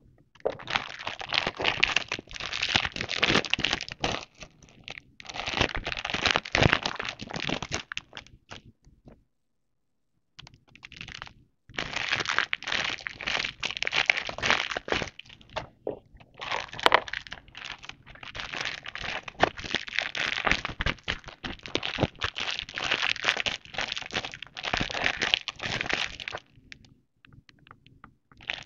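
Clear plastic zip pouches holding baby bibs crinkling as hands handle and turn them over, in long crackly stretches. The crinkling pauses briefly about a third of the way in and is quieter near the end.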